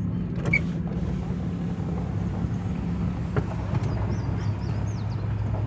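Dodge Ram pickup running at low speed, a steady low engine hum heard from inside the cab.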